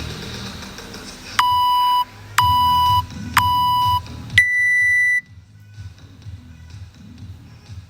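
Workout interval timer counting down: three short beeps a second apart, then one longer, higher beep that signals the start of the workout.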